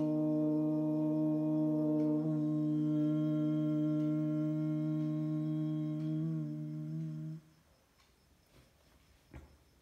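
One voice holding a long chanted 'Om' as a steady hum, wavering slightly before it stops about seven seconds in. A faint click near the end.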